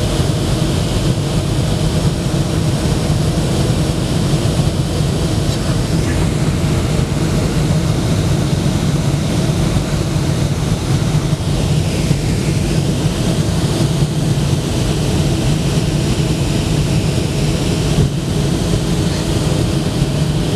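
Boeing 757 cabin noise on descent: the steady drone of the turbofan engines and the airflow, heard from inside the cabin beside the wing. It is a strong, even low hum with a few faint steady tones above it.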